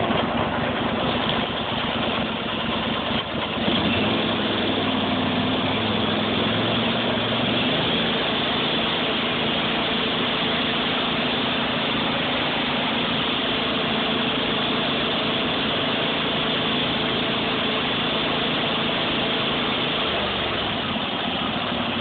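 Cub Cadet GT2542 garden tractor engine running steadily just after a key start, already warm from an earlier cold start. Its note settles about four seconds in.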